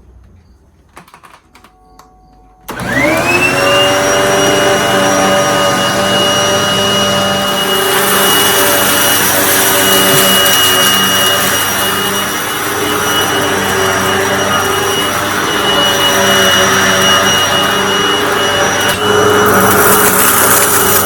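A Miele S183 PowerHouse bagged upright vacuum, a rebranded Panasonic with a 12-amp motor, is switched on a few seconds in after a few light clicks. Its motor whine rises as it spins up, then it runs steadily, growing a little louder and hissier near the end.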